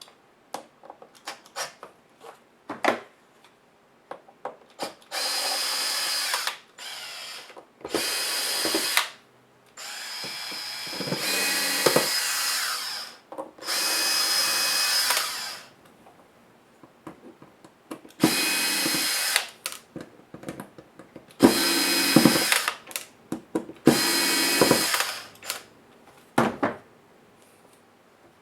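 Cordless power screwdriver running in short spurts of one to two seconds, about nine times, backing out screws during disassembly, with small clicks and taps between the runs.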